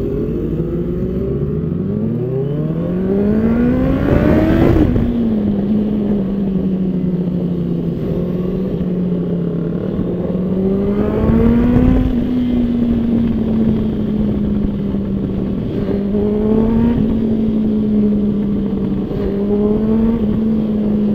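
The inline-four engine of a modified 2018 Honda CBR650F, heard through its aftermarket exhaust, revving up hard from low revs for about four seconds and then dropping suddenly at a gear change. It then cruises at steady revs, with a second rise and easing off about twelve seconds in and short throttle blips near the end.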